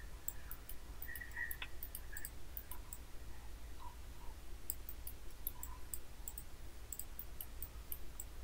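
Many quick, light, irregular clicks of a computer mouse over a low steady hum.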